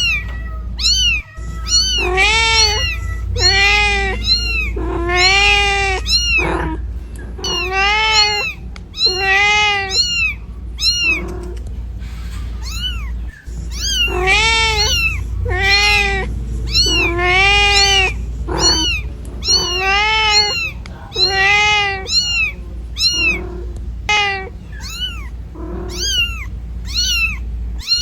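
Mother cat meowing over and over, calling for her lost kitten: loud meows that rise and fall in pitch, about one a second, with a couple of short pauses. A steady low rumble runs underneath.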